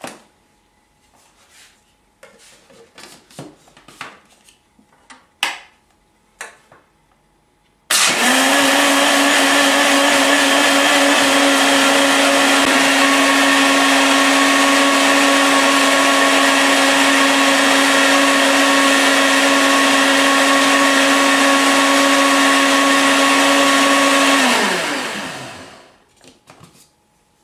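Electric mixer-grinder (mixie) churning yogurt, sugar, water and mint leaves into lassi: a few light knocks as the jar is handled, then the motor starts abruptly about a third of the way in, runs loud and steady with a whining hum for about sixteen seconds, and is switched off, its pitch falling as it spins down.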